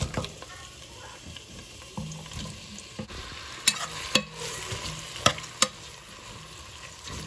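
Sliced red onions dropped into hot mustard oil and sizzling as they fry, stirred with a metal spoon that clicks against the pot about four times near the middle.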